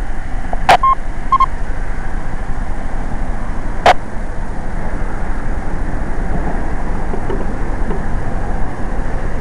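Static hiss from a two-metre FM amateur radio between transmissions. Two sharp clicks come through, about one and four seconds in, and two short beeps sound about a second in.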